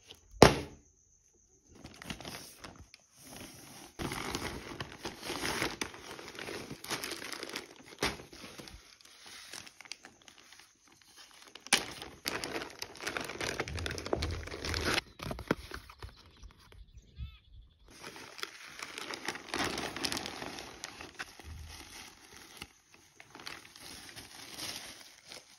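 Plastic packaging crinkling and rustling in stretches as hands open a clear plastic bag and pull out a soccer jersey, with short pauses between handlings. A sharp knock comes right at the start.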